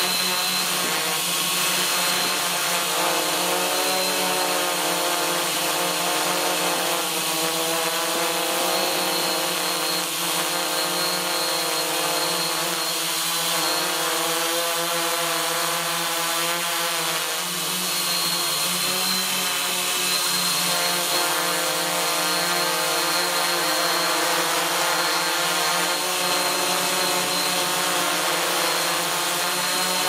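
Hexacopter's six electric motors and propellers whining steadily, heard from its on-board camera, with several tones drifting slowly up and down as the motors change speed to hold the aircraft in the air.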